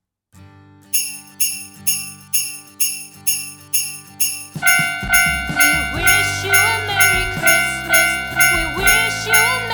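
Jingle bells ringing in a steady beat of about two strikes a second, paced like a level-crossing alarm. About halfway through, steady high tones and a wavering melody join in.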